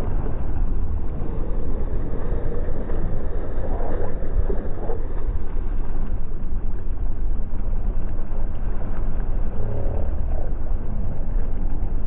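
Fishing boat's engine running with a steady low rumble, mixed with wind and water noise at the stern.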